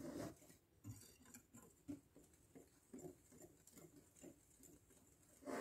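Faint, soft swishing strokes of a wire whisk stirring dry flour and cocoa powder in a ceramic bowl, about two to three strokes a second, with a brief louder sound right at the end.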